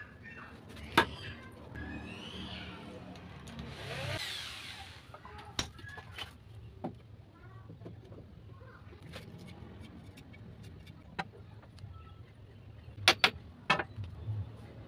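Scattered sharp wooden knocks and taps as loose planks are handled on a wooden bench frame: the loudest about a second in and a close pair near the end, with a brief scrape about four seconds in. A low steady rumble runs underneath.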